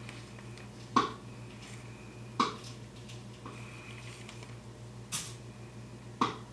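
Fox squirrel feeding at a hanging wire-cage seed feeder: four sharp clicks or cracks at uneven gaps of one to three seconds, over a steady low hum.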